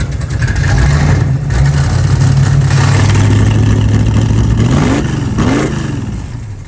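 LS-swapped, cammed V8 in a G-body Monte Carlo running at a steady idle, then revved briefly a couple of times about five seconds in before settling down.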